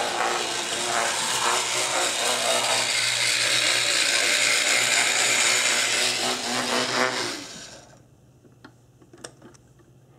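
HO-scale brass model steam locomotive (Canadian Pacific 4-4-4 Jubilee) running on its track: the steady whirring of its electric motor and gears, loud and close. It falls away suddenly about three-quarters through, leaving a few faint clicks.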